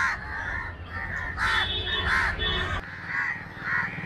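Several crows cawing over and over in short, overlapping calls.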